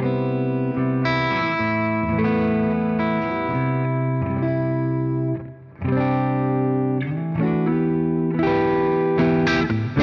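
Gibson Les Paul Standard electric guitar played through a Victory Sheriff 25 valve amp's vintage channel with overdrive: strummed chords left to ring out. The sound drops briefly just past halfway, and the strumming gets busier near the end.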